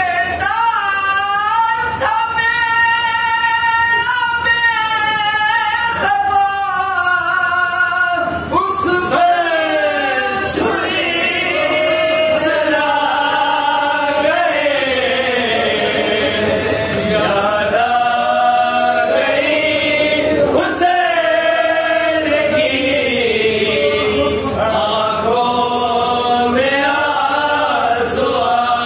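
Men singing a salam, a devotional elegy for Imam Husain, unaccompanied, in long held melodic notes that slide between pitches, amplified over a microphone.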